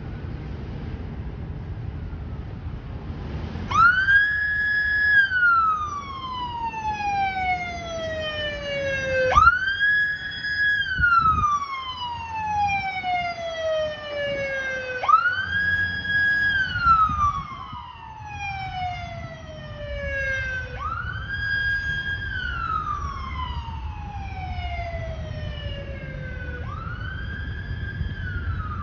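Fire department squad truck's siren wailing: starting about four seconds in, each sweep rises quickly, holds briefly, then falls slowly, about five and a half seconds a sweep, five times over, the last one fainter as the truck drives away. Before the siren starts, the truck's engine rumbles.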